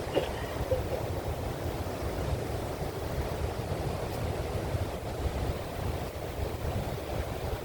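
Ocean surf breaking on the shore in a steady wind, with wind rumbling on the microphone.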